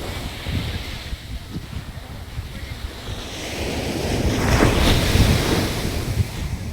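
Sea waves washing ashore: surf builds about halfway through and one wave breaks loudest near the end before easing off. Wind buffets the microphone throughout.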